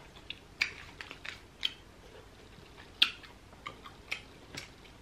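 Close-miked eating sounds: chewing and wet lip smacks from someone eating grilled fish with her fingers, about a dozen short, sharp clicks at uneven intervals.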